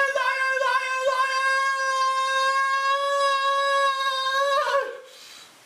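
A man screaming in a childish tantrum: one long, high wail held at a nearly steady pitch, which drops and breaks off just before five seconds in.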